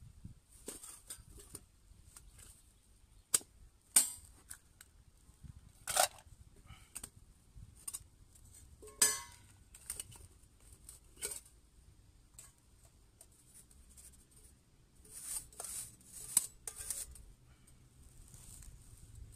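Small metal camp stove and pot being handled: scattered sharp clinks, knocks and scrapes of metal, with a quick run of clatter about three-quarters of the way through.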